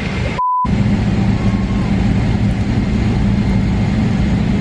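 Steady airliner cabin noise, a low drone. About half a second in it cuts out briefly, leaving only a short steady beep.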